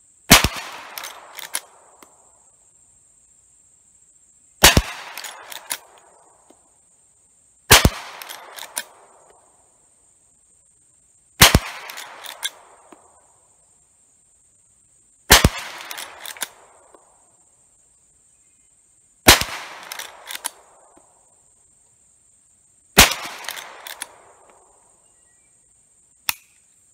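Seven rifle shots from a Rossi R92 lever-action .357 Magnum carbine firing light .38 Special handloads (158-grain cast bullet over 5 grains of CFE Pistol), spaced about every three and a half to four seconds, each followed by a short trail of quieter clacks. A single small click comes near the end, and a steady high insect drone runs underneath.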